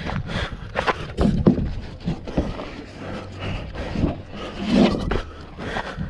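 An obstacle racer's footsteps and heavy breathing, heard close up, with irregular scuffs and knocks of feet and gear.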